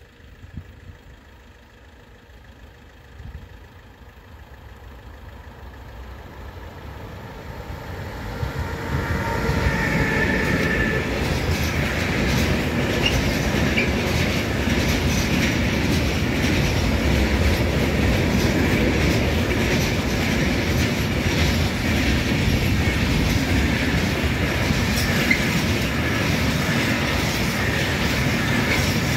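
Intermodal freight train passing: the rumble builds over the first several seconds, then the wagons roll by with steady wheel noise and clatter over the rail joints.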